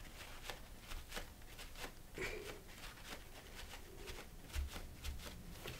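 Faint rustling and light scratchy strokes of a crumpled paper towel dabbing and wiping wet acrylic paint on a gel printing plate, with a soft low bump about four and a half seconds in.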